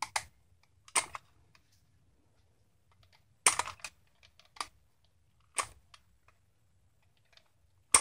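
Pliers working a special bolt out of a Mercedes GL450 seatbelt retractor's metal frame: about six sharp metallic clicks and snaps, irregularly spaced, as the jaws grip and twist the bolt.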